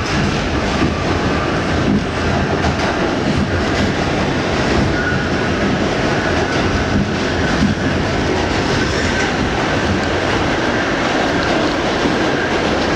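R68 subway car running at speed through a tunnel, heard from inside the car: a steady, loud noise of wheels on the rails and the car in motion.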